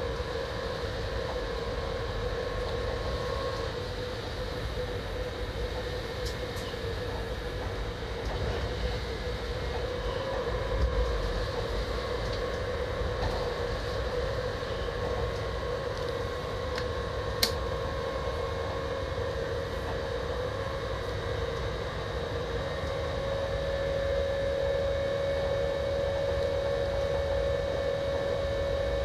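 Train running along the track, heard from inside the driver's cab: a steady running rumble with a steady whine, and one sharp click about two-thirds of the way through.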